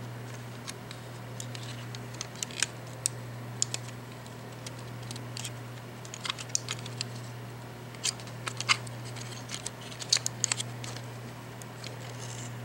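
Irregular small clicks and taps of plastic mouse-shell parts being handled and worked by hand, over a steady low hum.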